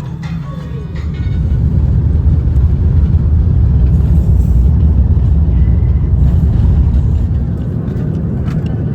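Loud, steady low rumble of a vehicle in motion, swelling about a second in and easing slightly near the end.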